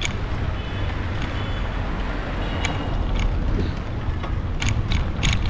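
Steady low rumble of road traffic, with a few short high tones in the first three seconds and a cluster of sharp clicks near the end.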